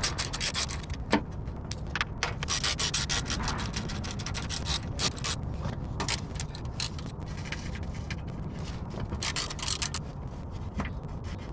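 Hand ratchet wrench clicking in quick runs that start and stop, as the bolts holding a truck's plastic underbody shield are backed out.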